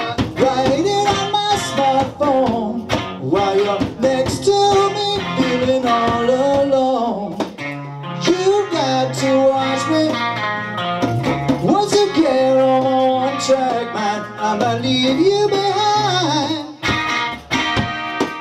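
Live blues-rock band playing: electric guitar with bending notes over hand-drum percussion and a steady low line.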